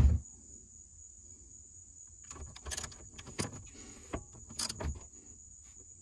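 Socket ratchet wrenches tightening a seat-belt mounting bolt and nut, heard as scattered metallic clicks and clinks that begin about two seconds in.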